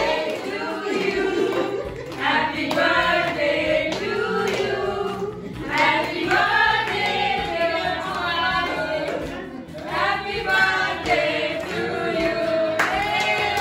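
A small group of mixed voices singing a birthday song together, with hand clapping along.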